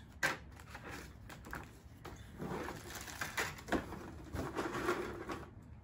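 Plastic bags and crumpled packing paper rustling and crinkling, with a few scattered light knocks of plastic toy pieces, as a cardboard toy box is unpacked.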